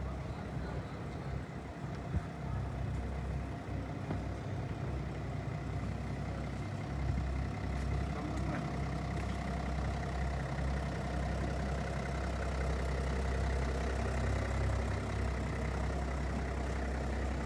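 A car engine idling with a steady low hum that grows stronger about seven seconds in.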